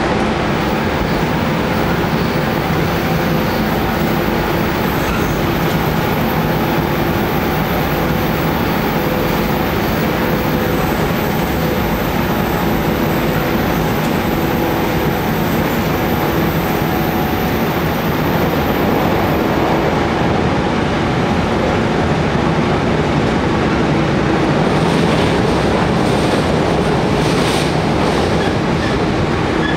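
Running noise inside a JR Kyushu 415 series (100 subseries) motor car at speed: the steady hum of its resistance-controlled MT54 traction motors over wheel-and-rail rumble.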